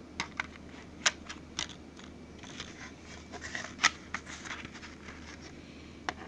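Plastic CD jewel case being handled, with a disc in it: a string of sharp plastic clicks and light rustling, the loudest clicks about a second in and about four seconds in.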